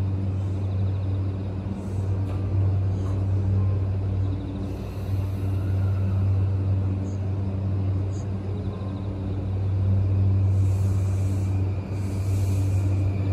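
JR E235-1000 series electric train pulling slowly into the platform to stop: a steady low hum over rolling rumble, with some hissing near the end.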